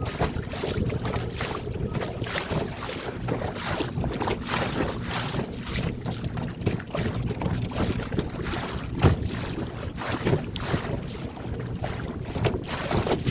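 Wind gusting against the microphone in irregular blasts, over a steady low hum, aboard a small boat on choppy open water.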